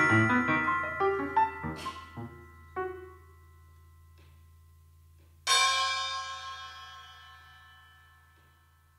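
Closing notes of a free improvisation on piano and mallet percussion: scattered struck notes ring and fade out over the first few seconds, then after a pause one final resonant struck chord sounds about five and a half seconds in and slowly dies away.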